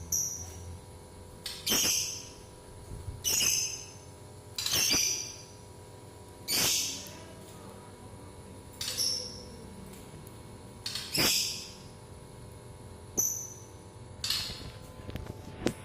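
Caged bird giving short, shrill high-pitched calls, one every second or two with pauses between.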